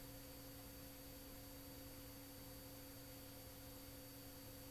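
Near silence: a faint, steady electrical hum with a low tone, unchanging throughout.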